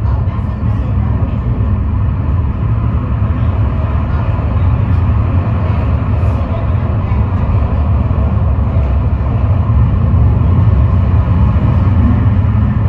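Montjuïc funicular car running downhill on its rails, a steady low rumble heard from inside the car.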